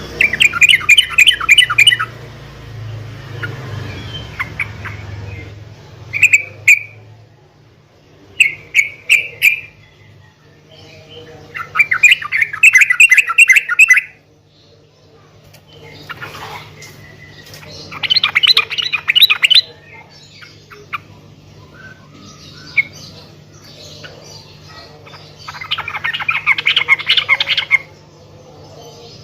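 Yellow-vented bulbul (trucuk) singing: about six loud bursts of rapid, bubbling chattering notes, each up to two seconds long, with quieter calls in between. A faint steady low hum lies underneath.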